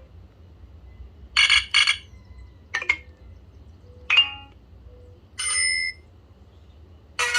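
Short BlackBerry Curve 8520 alert tones played one after another: a quick double chime, a brief blip, a single ping, a held tone of about half a second, and another chime near the end, with pauses of about a second between them.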